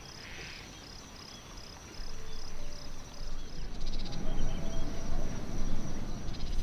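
An insect chirps in a steady high trill of about three pulses a second until about four seconds in, with a few faint bird chirps. A low rushing noise grows louder from about two seconds in.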